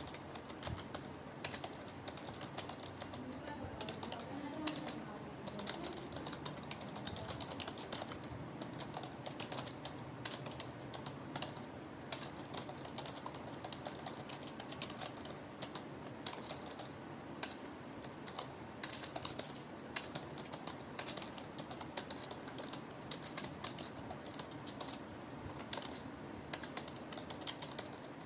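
Continuous typing on a computer keyboard: a quick, uneven run of key clicks.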